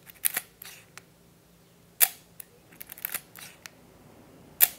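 Voigtländer R2A rangefinder film camera being worked: sharp shutter clicks with short ratcheting strokes of the film advance lever between them. The two loudest clicks come about two seconds in and near the end.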